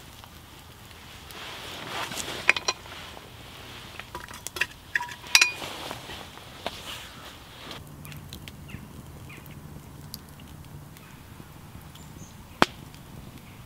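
Several sharp metallic clinks and knocks at the cast-aluminium Kazan pressure cooker, some ringing briefly, as it is handled over the campfire with the lamb and onion going in to fry. After that, light campfire crackling with one sharp pop near the end.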